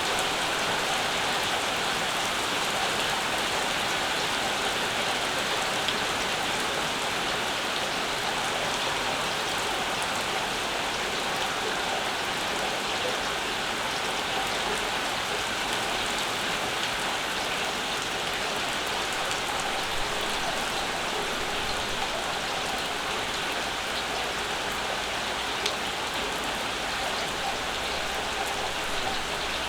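Steady summer rain falling, with the patter of drops on surfaces and a few faint louder drips now and then.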